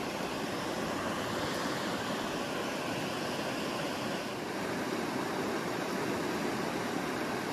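Steady rushing of flowing stream water, an even hiss-like wash with no breaks.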